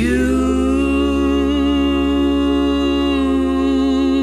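Background music: a held synth chord that swoops up in pitch at the start, then sustains steadily over a low drone.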